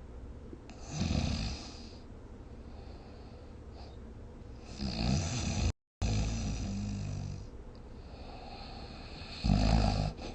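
A sleeping person snoring: a few loud snores a few seconds apart, the last one the loudest. Just before the middle the sound drops out completely for a moment, where the recording is cut.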